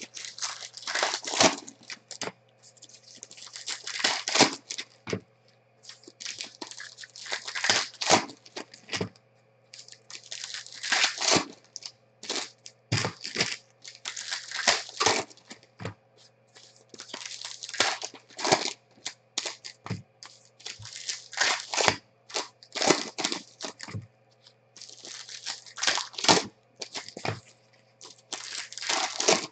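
Foil wrappers of Diamond Kings baseball card packs being torn open and crinkled by hand, in repeated irregular bursts of crackling every second or two.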